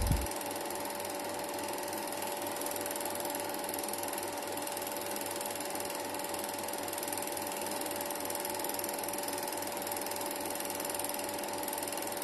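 Film projector running, its mechanism making a rapid, even clatter over a steady hum.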